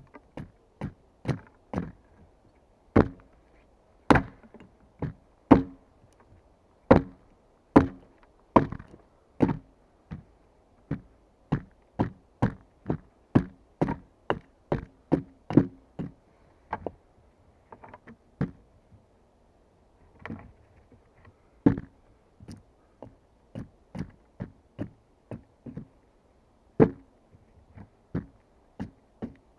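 Wood being struck with a hand tool: a long series of sharp chopping knocks, one to two a second, with a couple of short pauses.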